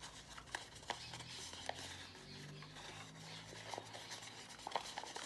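Pleated origami paper being pinched and creased by hand: quiet paper rustling with scattered small crackles and clicks as the folds are pressed firm.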